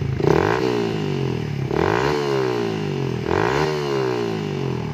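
Yamaha Vixion's single-cylinder four-stroke engine, breathing through an aftermarket stainless racing exhaust, blipped three times about a second and a half apart. Each rev rises quickly and falls back toward idle.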